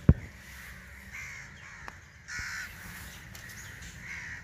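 Crows cawing: harsh calls every second or so, with a sharp thump right at the start.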